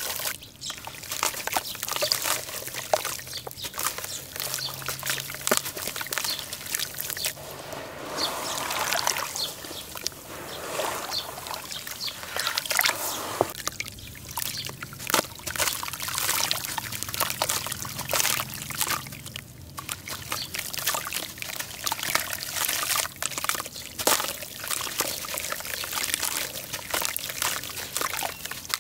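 Hands scooping and squeezing wet powdered charcoal in a basin of water, the slurry pouring and trickling back in with sloshing and many small wet clicks.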